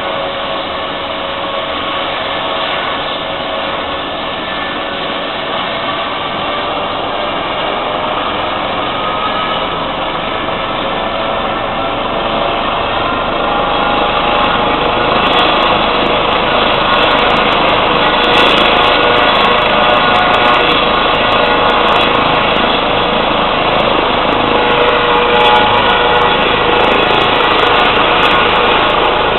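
Eurocopter EC135 air-ambulance helicopter running on the ground before lift-off: a steady turbine whine with rotor noise. About halfway through it grows louder and rises slightly in pitch as power comes up.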